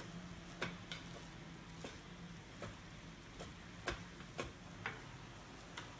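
Plastic rice paddle stirring cooked glutinous rice in the aluminium inner pot of a rice cooker, with faint scraping and irregular clicks as it knocks against the pot.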